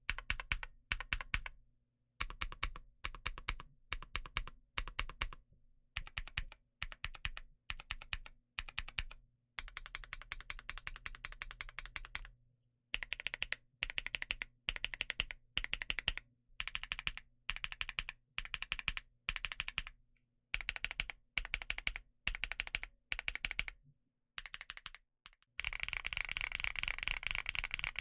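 Typing on a GamaKay TK75PRO mechanical keyboard with an aluminum frame: short bursts of keystrokes separated by brief pauses, turning into fast continuous typing about ten seconds in and again near the end.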